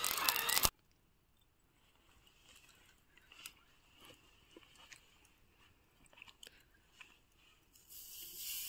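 A handheld air blower fanning glowing charcoal, cut off abruptly under a second in. Then faint soft squelches and clicks of wet, marinated chicken being handled on a skewer, with a soft hiss rising near the end.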